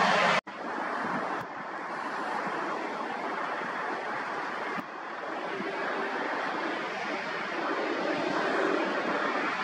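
An Embraer E195 jet airliner's two turbofan engines give a steady, even rush of jet noise as it flies by. About half a second in, a louder rush from the previous clip cuts off suddenly.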